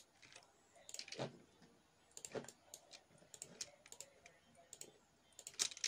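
Faint, irregular clicking of a computer keyboard and mouse as keys and buttons are pressed, with a few clicks coming in quick clusters about two seconds in and near the end.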